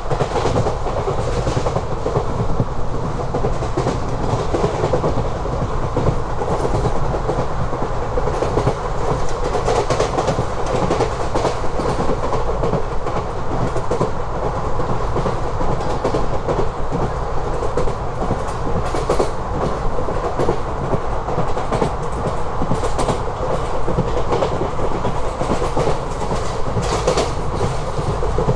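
ICF passenger coach running on the rails: a steady rumble of the wheels with frequent sharp clicks and knocks from the track.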